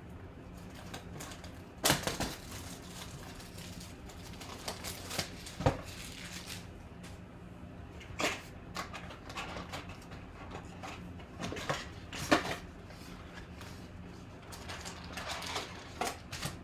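Card-box packaging being handled and opened by hand: irregular crinkles, scrapes and sharp knocks, the loudest about two seconds in and again around six, eight and twelve seconds, over a faint steady hum.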